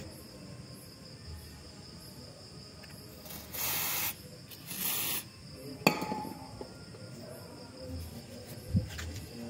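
Aerosol spray can with a straw nozzle giving two short hisses of under a second each, a few seconds in. Sharp metallic clicks follow, one about two seconds later and one near the end.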